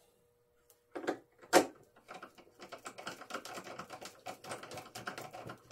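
Light clicks and taps of hand-fitting a small hex-head screw into the plastic rudder mount with a hex driver: two sharper knocks about a second in, then a run of quick, irregular clicks.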